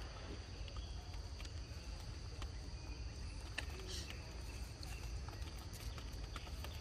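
Steady high insect drone over a low steady rumble, with a few faint clicks and a brief rustle about four seconds in.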